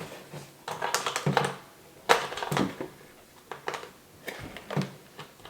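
Plastic parts of a toy helicopter being handled and pushed together: a series of short, irregular clicks and taps.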